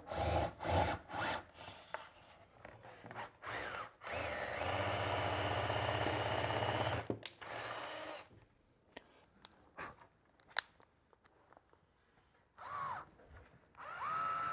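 Cordless drill-driver driving a screw through the back of a mitered trim corner. It spins up and runs steadily for about three seconds, then winds down, and gives a couple of short bursts near the end as the screw is snugged tight, pulling the miter together.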